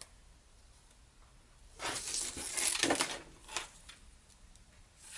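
A soft sewing tape measure and a sheet of paper being handled on a tabletop: rustling and sliding for about a second and a half, about two seconds in, with a few light ticks and one more light tap shortly after.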